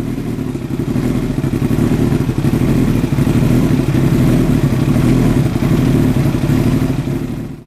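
Kawasaki ZX-12R inline-four engine running loud through Akrapovic exhaust headers. It grows louder over the first couple of seconds, holds steady, then cuts off abruptly at the very end.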